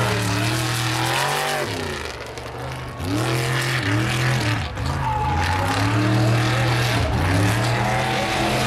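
Off-road buggy's engine revving hard at full throttle, its pitch rising and falling as it charges over a rough dirt course. The revs drop away about two seconds in, then climb again, dipping briefly twice more later.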